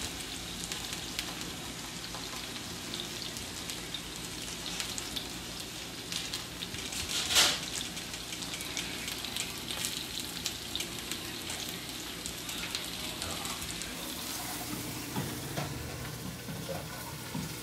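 Potatoes frying in a pan, a steady sizzle with small crackles, and one brief louder clatter about seven seconds in.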